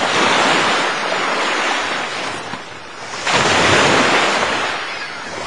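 Ocean surf: waves breaking and washing in, a first surge at the start and a second one about three seconds in.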